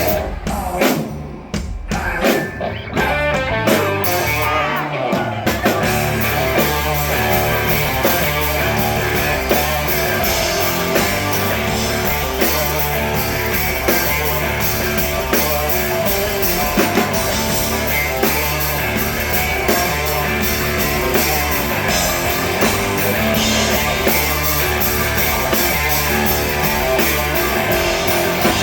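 A live rock band plays loudly, with electric guitars, bass and a drum kit. There are a few short stop-start breaks in the first five seconds, then the band plays on without a break.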